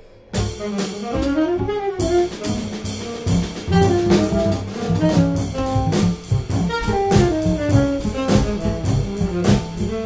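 Jazz trio playing: a saxophone melody that winds up and down over double bass and a drum kit, the drummer striking his cymbals with sticks. The band comes back in sharply just after the start.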